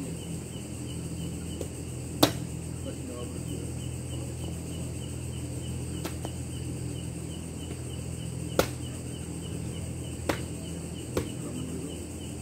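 Night insects, crickets, chirping fast and evenly over a low steady hum, with five sharp short cracks or knocks, the loudest about two seconds in and the others spread through the rest.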